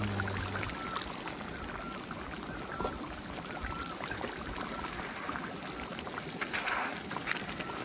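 A stream running, a steady wash of water with many small bubbling notes and light ticks through it.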